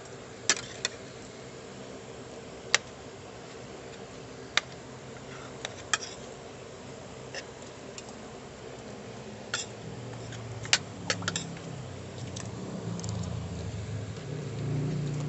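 Metal cutlery clicking against a ceramic dinner plate now and then while eating, over a steady low hum.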